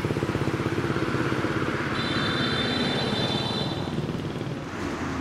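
A small engine running steadily with a fast, even chug. A thin high steady tone joins it for about two seconds in the middle.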